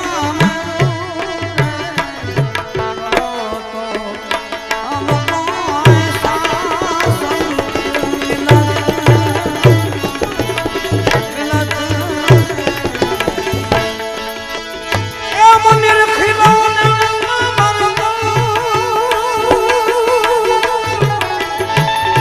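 Instrumental interlude of a devotional bhajan: a harmonium plays the melody over a steady hand-drum beat and small hand cymbals. About two-thirds of the way through, the melody gets louder, with long held notes.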